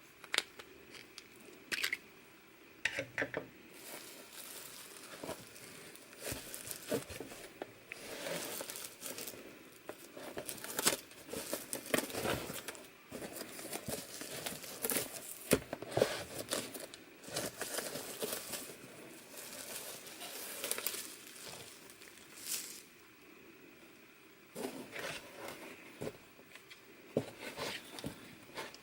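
Packaging being unwrapped by hand: irregular crinkling and rustling of wrapping with occasional tearing and sharp snaps, in a few short lulls and bursts.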